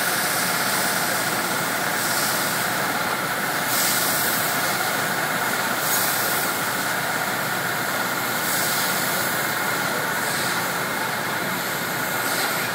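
An engine running steadily under a constant hiss, with a faint, steady high whine and a few brief surges of hiss.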